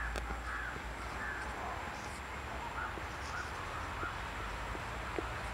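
Crows cawing, a run of short caws repeating every half second or so, weaker in the second half, with a few faint ticks.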